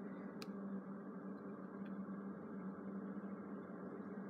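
Low, steady background hum, with one faint click about half a second in.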